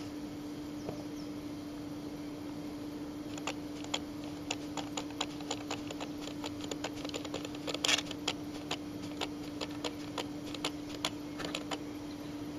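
Roe bucks sparring, their antlers knocking together in an irregular run of sharp clicks, several a second, starting a few seconds in with a louder cluster about two-thirds through, over a steady low hum.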